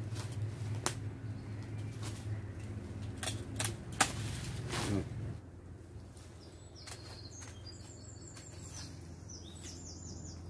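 A handful of sharp snips from long-handled loppers cutting through conifer branches, the loudest about four seconds in, over a low steady hum. Small birds chirp in the second half.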